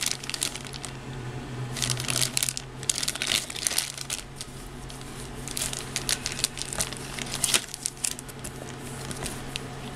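Clear plastic bags holding plastic model-kit runners crinkling as they are handled, in irregular spells of crackling, busiest about two seconds in and again around six to seven seconds.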